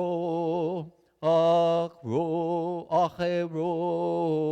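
A man chanting the Hebrew Torah reading in traditional cantillation, drawing out each word over long held notes with a wavering pitch, with brief breaks between phrases.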